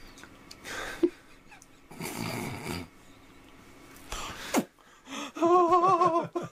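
Two men laughing: a few breathy, wheezy bursts of laughter, then near the end a loud, high, wavering 'ha-ha-ha' laugh.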